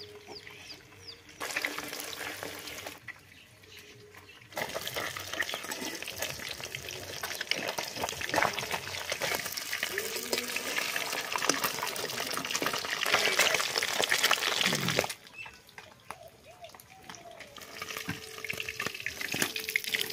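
Pieces of mrigal fish sizzling and crackling as they fry in hot oil in an iron wok. The sizzle comes and goes with abrupt changes: quieter at first, loud through the middle, then it drops off suddenly about three-quarters of the way through.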